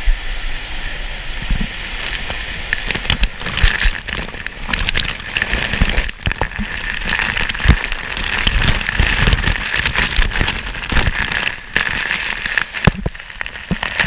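Waterfall spray and falling water pelting the camera close up: a loud rushing hiss, steadier at first, then from about three seconds in thick with sharp crackling splashes and low knocks.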